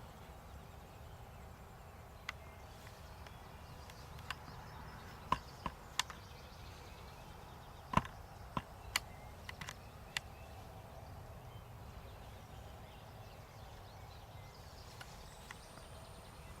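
Animals walking in dry leaves and twigs: scattered sharp ticks and snaps, a dozen or so, mostly in the first ten seconds, with the loudest about eight seconds in.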